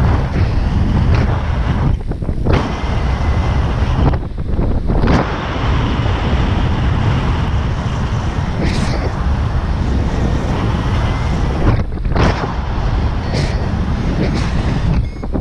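Wind buffeting the camera microphone in flight under a paraglider: a loud, steady rushing heavy in the low end, with a few brief lulls.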